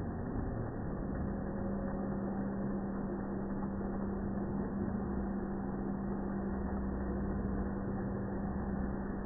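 N-scale model trains running on an exhibition layout, heard as a steady low rumble and hum. A steady low tone joins about a second in.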